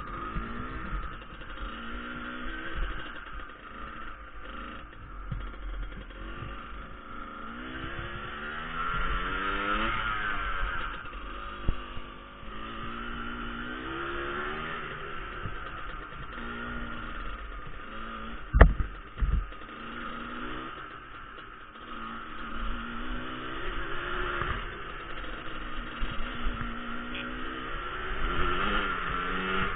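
Motorcycle engine running under way, its pitch climbing and dropping again and again as it accelerates and changes gear. A single sharp knock sounds about two-thirds of the way through.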